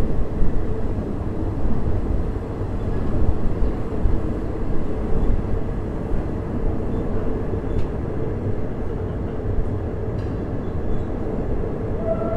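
Third-class passenger train running steadily, heard aboard: a continuous low rumble of wheels and carriage, with a couple of faint clicks in the second half.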